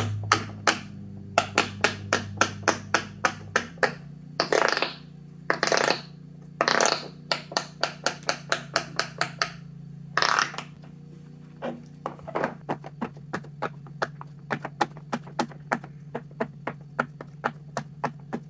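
Fingers pressing the silicone bubbles of a jumbo pop-it fidget toy, giving a rapid run of sharp pops, several a second. A few longer, louder bursts of popping come near the middle.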